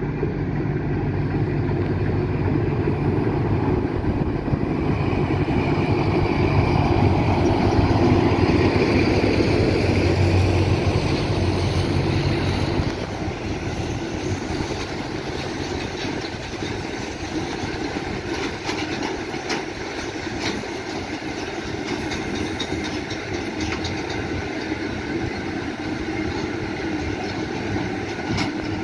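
TCDD DE24000-class diesel-electric locomotive hauling a freight train past. The diesel engine's drone swells as the locomotive comes by and falls away about 13 seconds in. The loaded open freight wagons then roll past with a rumble and repeated wheel clicks on the rails.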